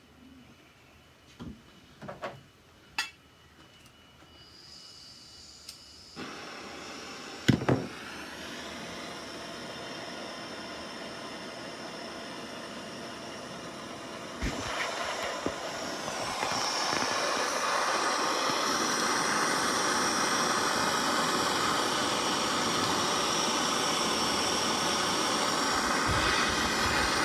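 Blowtorch flame hissing steadily as it heats a seized tailgate strut bolt to loosen its blue Loctite, after a few sharp clicks early on; the hiss grows louder about sixteen seconds in.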